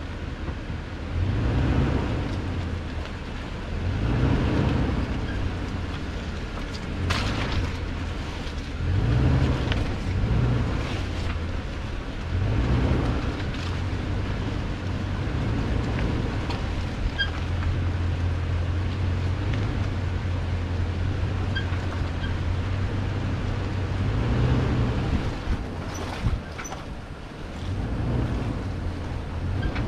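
2018 Toyota Tundra's V8 engine running at low speed on a rough dirt trail, the drone rising and easing every few seconds with the throttle. A few sharp knocks come through, one partway in and a couple more near the end.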